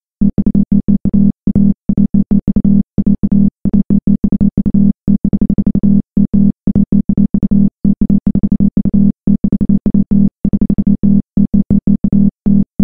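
Electronic background music: a synthesizer track of rapid, choppy stuttering notes broken by frequent abrupt gaps, starting a moment in.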